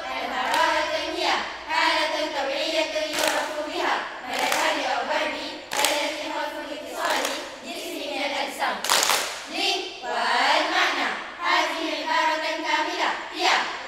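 A choir of girls chanting Arabic verse in unison, a melodic group recital with rising and falling phrases.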